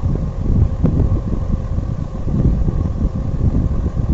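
Steady low rumble of air buffeting the microphone.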